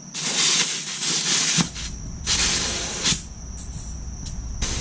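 Compressed air hissing in three sharp bursts from an air nozzle, inflating a punctured dirt-bike inner tube to find the leak. A low steady rumble comes in about a second and a half in.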